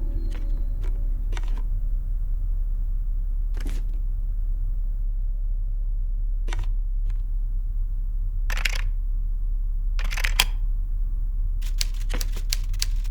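A steady low hum with sharp clicks and short hissy bursts scattered through it, a few seconds apart, ending in a quick run of clicks.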